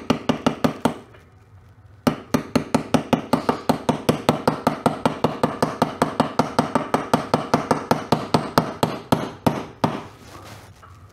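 Hammer tapping a socket used as a driver to seat a new wheel bearing into a dirt bike's rear wheel hub. Quick, even, ringing metal-on-metal strikes, about five or six a second, stop for a moment about a second in, then run on steadily and slow to a few last blows near the end.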